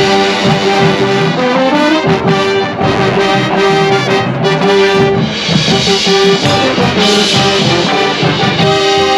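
High school marching band playing, with the brass section (trombones, trumpets) carrying sustained and moving melodic lines over the band.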